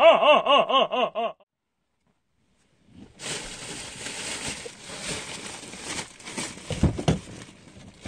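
A man laughing "ha-ha-ha-ha" in quick, even bursts, cut off abruptly about a second and a half in. After a short silence comes a rustling hiss of movement inside a car, with a couple of low thumps near the end.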